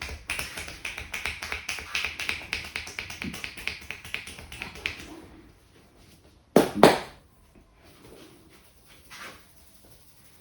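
Quick rhythmic hand tapping on a person's head during an Indian head massage, several light pats a second for about five seconds. It fades out, and about a second and a half later comes one loud smack of the hands.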